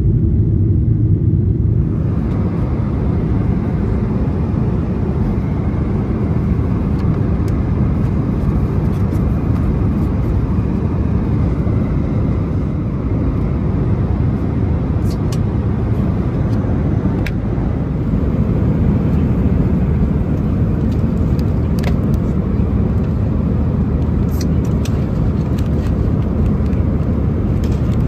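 Steady cabin noise inside a Boeing 737-900ER in flight: the low rumble of its CFM56 engines and rushing airflow, with a lighter hiss above it. A few small clicks come through in the second half.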